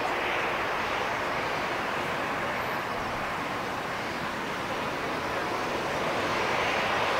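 Airbus A320-214's twin CFM56-5B turbofan engines running with a steady jet hiss as the airliner rolls along the ground, growing a little louder near the end.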